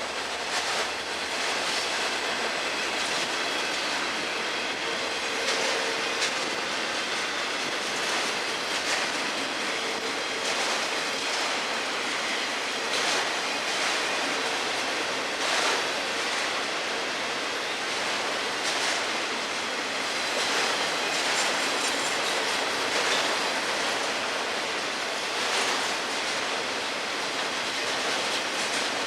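Freight cars of a long freight train rolling past: a steady rumble and rush of steel wheels on rail, with sharp clicks every second or two as wheels cross rail joints.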